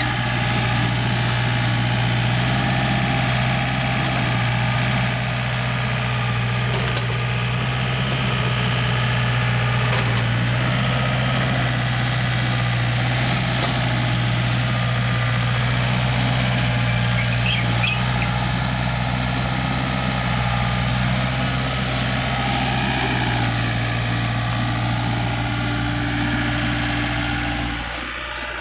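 Doosan mini excavator's diesel engine running steadily as the machine digs, its note dropping near the end.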